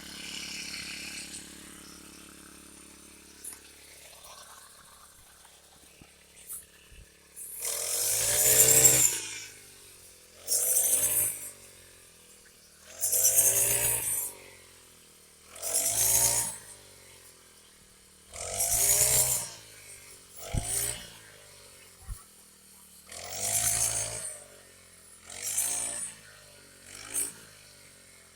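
Small engine of a rice harvesting machine revved in repeated bursts, about nine times, each rev rising and falling back to a quiet idle every two to three seconds.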